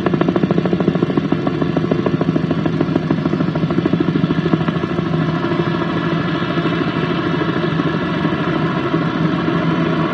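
Helicopter running steadily, its rotor making a fast, even chopping pulse over a steady engine tone.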